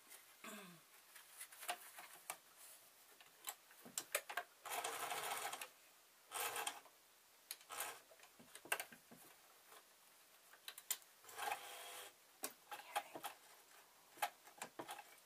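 Electric domestic sewing machine stitching in three short bursts, the longest about a second, with scattered clicks and rustles of the fabric and machine being handled between them.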